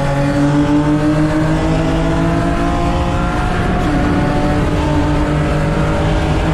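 Nissan 350Z's V6 engine heard from inside the cabin, pulling hard under full throttle with its pitch steadily climbing, then dropping for a quick upshift about four seconds in before climbing again.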